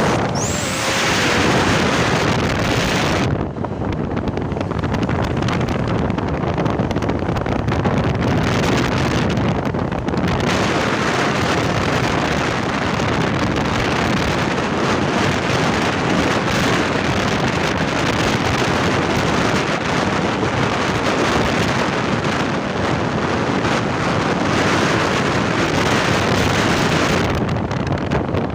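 Heavy wind buffeting on the microphone over a vehicle running, a steady rushing noise that barely varies in level.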